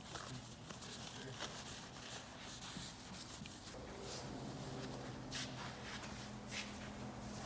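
Faint rubbing of a rag wiping the car's body panels down with wax and grease remover, in short irregular swipes, over a low steady hum.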